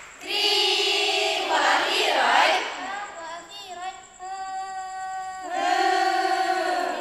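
A group of girls' voices singing in unison, holding long drawn-out notes, with a quieter passage in the middle and a loud held note again near the end.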